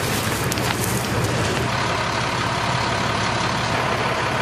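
A fire engine idling with a steady low rumble, with a few sharp crackles near the start.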